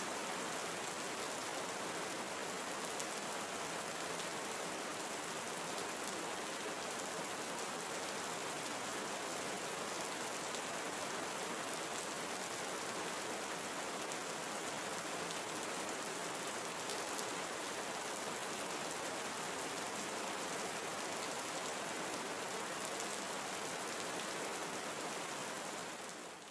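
Steady rain falling in a tropical rainforest, an even, unbroken hiss of many drops. It fades out at the very end.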